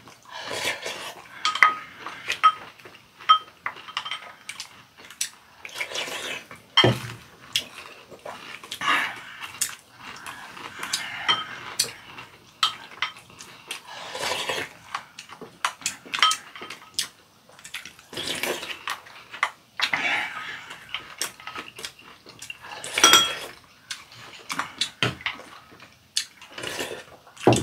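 Chopsticks and spoons clicking and scraping against ceramic bowls during a meal, with short bursts of chewing and slurping between the clicks.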